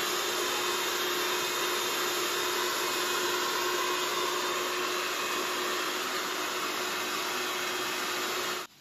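A loud, steady hiss with a faint steady hum under it. It cuts off suddenly near the end.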